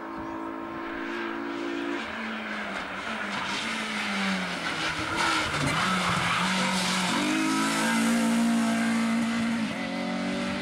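Renault Clio rally car's engine under race effort. The note falls over the first few seconds as the car slows into a bend, and tyres squeal through the corner. The engine rises again about seven seconds in as the car accelerates away.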